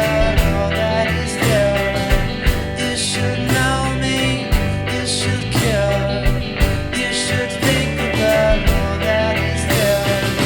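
Indie rock band playing an instrumental passage: a steady drum beat with sustained bass notes and guitar.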